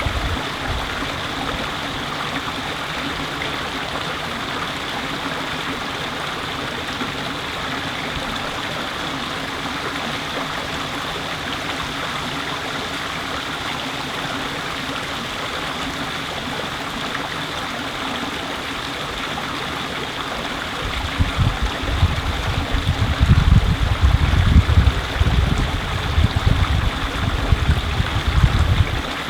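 Steady rush of flowing stream water. From about two-thirds of the way through, wind buffets the microphone in irregular low gusts.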